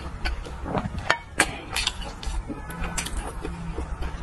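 Close-miked eating sounds: wet chewing and lip smacks with many short sharp mouth clicks.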